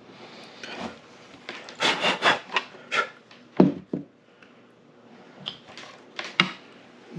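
Hands handling and rubbing a plastic lathe cover freshly drilled for mounting holes, clearing away plastic drill shavings. Several short scrapes and knocks, clustered about two seconds in and again near the end.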